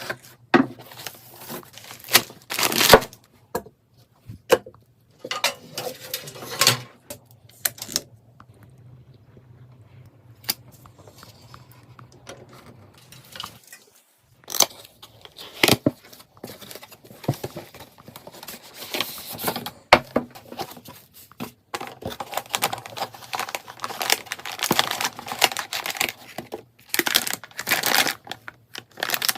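Hands handling PC parts and their packaging: crinkling and tearing of wrapping, with frequent sharp clicks and knocks. It goes quieter for a few seconds in the middle, then the rustling gets busier near the end.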